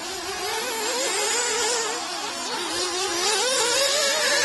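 1/8-scale nitro RC buggy engines buzzing at high revs, their pitch wavering up and down as the throttle is worked through the track's bends and straights.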